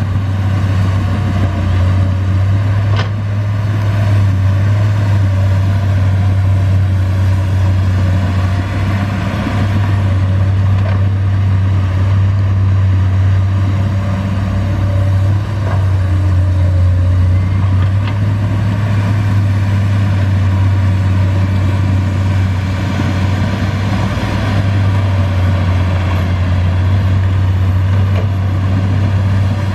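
Komatsu PC200 hydraulic excavator's diesel engine running steadily while digging soil, a deep even hum, with a couple of faint clicks.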